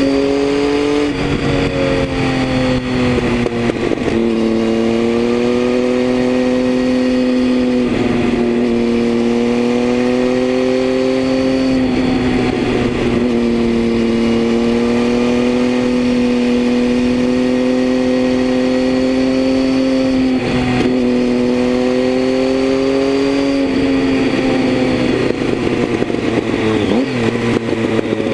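Triumph Tiger 800's three-cylinder engine running through a Leo Vince aftermarket exhaust under steady cruising throttle. Its pitch drops a step about a second in and again about four seconds in, then holds steady. Near the end it wavers with throttle changes.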